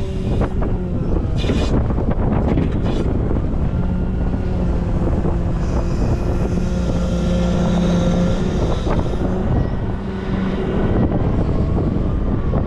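Volvo L90F wheel loader's diesel engine working, its note climbing and held higher for a few seconds in the middle before dropping back, with a few sharp knocks along the way.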